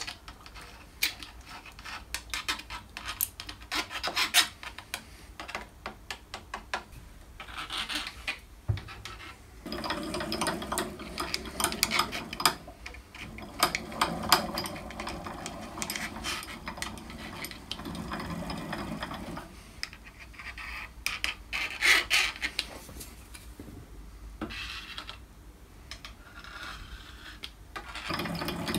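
A pump oil can clicking over and over as oil is squirted into the table slide, then a steady rasping rub in long stretches as the handwheel is cranked, driving the ball screw and sliding the drill-press cross table along its ways.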